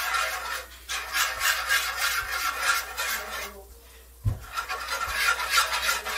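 Metal whisk scraping quickly and rhythmically through a thick butter-and-flour roux in a cast iron skillet while the flour cooks. The strokes stop briefly a little past the middle, a low knock sounds, and the whisking starts again.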